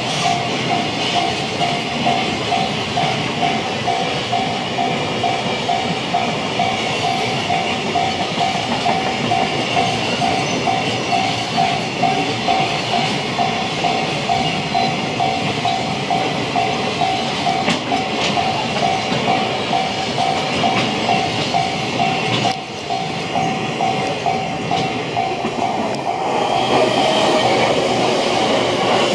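A train running past a Japanese level crossing while the crossing bell rings in steady pulses, about two a second. The bell stops about 22 seconds in, and the train noise swells again near the end.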